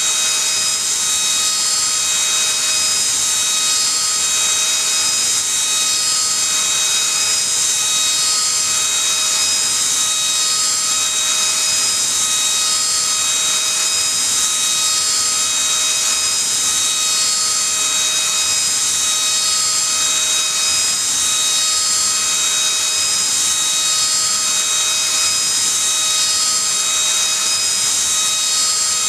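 High-speed CNC spindle driving a small end mill as it mills a round pocket in brass plate: a steady high-pitched whine with several steady tones over a hiss.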